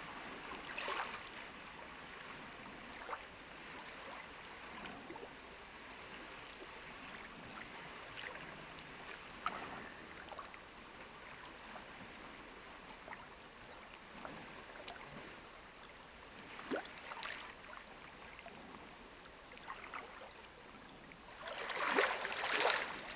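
Small lake waves lapping and splashing against flat shore rocks, with a steady wash between occasional splashes and a louder, longer splash near the end.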